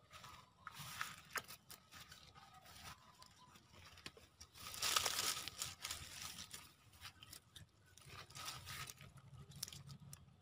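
Dry leaves and grass rustling and crackling in several bursts, with scattered small clicks; the loudest burst comes about five seconds in.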